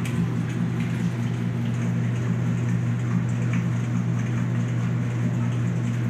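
Steady low electric hum of a running laundry machine, with a faint hiss over it.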